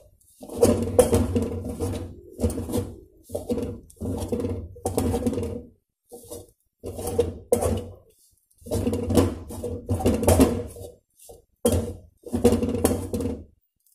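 Steel tumbler pounding and scraping against an aluminium kadai, chopping and mashing soft pieces of chapati to make kothu chapati. The clatter comes in repeated bouts of one to two seconds with brief pauses between them.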